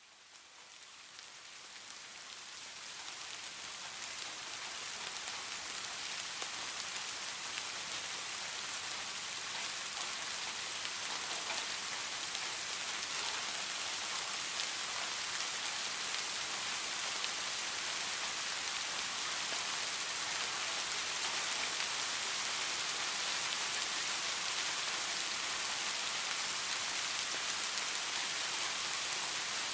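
Steady heavy rain, a dense even hiss of many drops, fading in from silence over the first few seconds and then holding steady.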